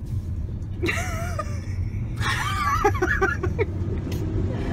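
A man laughing in short, rhythmic chuckles around the middle, with a brief vocal exclamation about a second in, over the steady low road rumble inside the cabin of a moving Tesla Model S.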